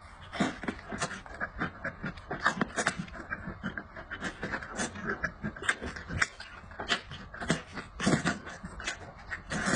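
Close-miked mukbang eating sounds: a man biting meat off goat ribs and chewing with his mouth open, giving irregular wet smacks and clicks several times a second.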